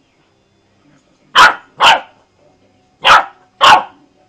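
A small dog barking: four short barks in two pairs, the second pair about a second and a half after the first.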